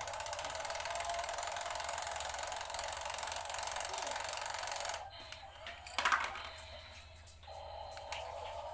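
Small electric motor and gearbox of a toy vehicle whirring steadily for about five seconds, then stopping abruptly. A short louder noise follows, and the whirring starts again, quieter, near the end.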